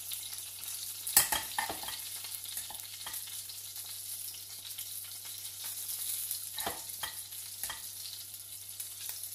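Cherry tomatoes sizzling in olive oil in a frying pan, a steady hiss. A metal spoon knocks and scrapes now and then as rice is scooped out of a saucepan, the loudest knock about a second in.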